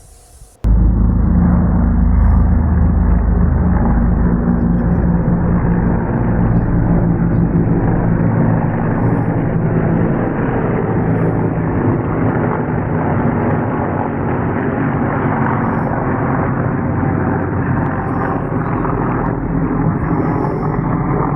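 A vehicle engine running steadily with a deep, even rumble, starting abruptly about half a second in.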